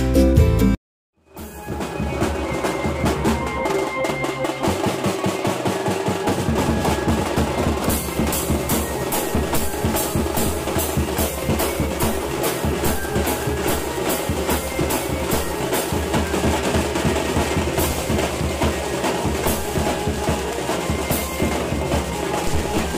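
Wedding band drummers beating snare-type side drums and a bass drum with sticks in a fast, dense rhythm. It follows a short burst of recorded music and a brief silence in the first second and a half, and crisper, brighter strokes join about eight seconds in.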